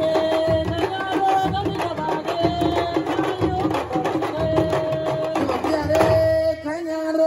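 A woman singing in long held notes over fast sabar hand-drumming; the drums drop out near the end while her voice carries on.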